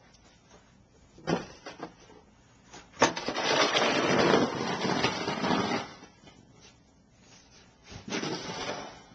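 Snow shovel scraping through heavy snow on a driveway: a short scrape about a second in, a long push of almost three seconds starting with a sharp knock of the blade, and another scrape near the end.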